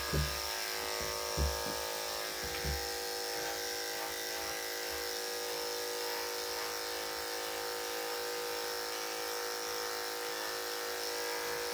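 Corded electric dog grooming clippers with a number 10 blade, running with a steady buzz as they shave the armpit and belly of a wet dog. Three soft low thumps come in the first three seconds.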